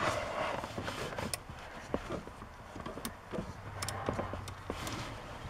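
Socket wrench on an extension working a 10 mm bolt of a truck's accelerator pedal position sensor: scattered light metallic clicks and taps over soft handling noise.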